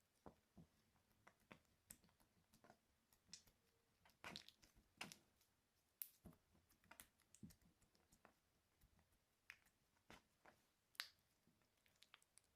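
Slime being squished and pressed by hand, making faint, irregular sticky clicks and pops, with a few sharper pops along the way.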